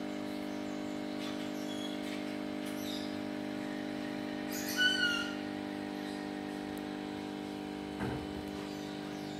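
A steady mechanical hum, with a few faint chirps in the first three seconds and one short, louder bird call about five seconds in.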